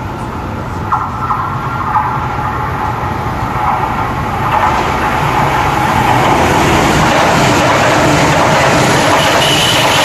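A coupled E6 Komachi and E5 Hayabusa shinkansen train passing a station platform at speed: a rushing noise of wheels and air that builds from about halfway through and then stays loud, with a thin high whine appearing near the end.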